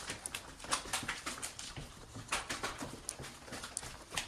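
Footsteps walking along a hard corridor floor, an uneven series of sharp steps, two or three a second.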